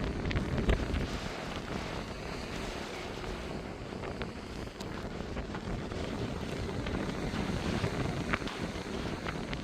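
Wind buffeting the microphone in gusts, over the wash of sea surf below.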